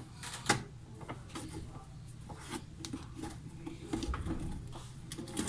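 Scattered clicks, light knocks and scraping of metal parts and tools being handled while the pulley nut and drive belt come off a washing machine, with one sharper click about half a second in.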